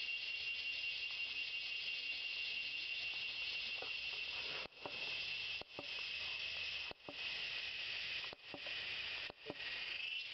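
Steady high-pitched buzz of an insect chorus, which breaks off briefly about five times in the second half. Faint short rustles and snaps lie beneath it.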